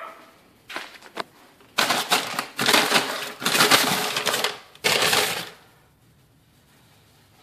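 Brown paper grocery bag crinkling and rustling close to the microphone, in several loud bursts over about four seconds, after a few light taps.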